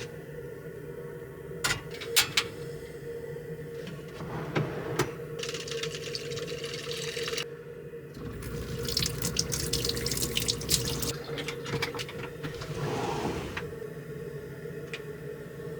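Water running from a tap into a small sink, in spells, over a steady hum, with a few sharp clicks in the first seconds.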